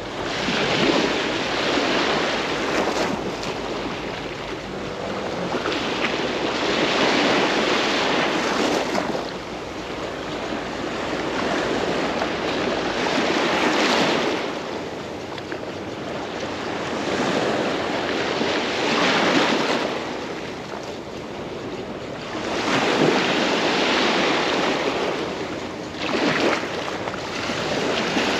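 Small sea waves breaking and washing up the shore, the surf swelling and easing every few seconds.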